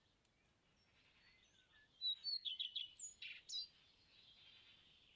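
Small birds chirping and calling: a few faint chirps, then a quick run of loud chirps and whistles about two seconds in, easing back to soft calls.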